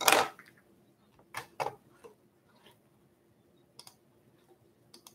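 The tail of a spoken word at the very start, then a handful of faint, scattered clicks spread over the next few seconds, with two close together about a second and a half in.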